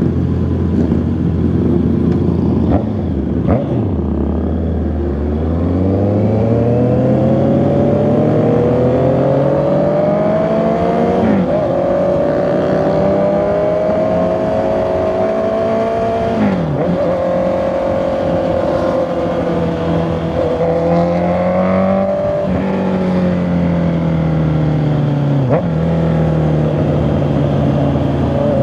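Honda CB650R's inline-four engine and exhaust under way. The engine note climbs steadily as the bike accelerates, with a sharp drop in pitch at each gear change, about every five seconds, and eases off in the last few seconds.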